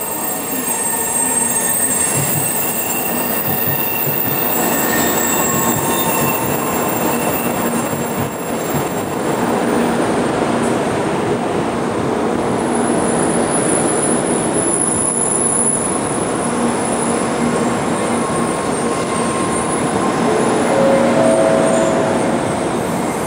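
N700 series Shinkansen electric train pulling slowly into a station platform: a steady rolling rush of wheels on rail and running gear as the cars pass close by. Thin high squealing tones come and go over it.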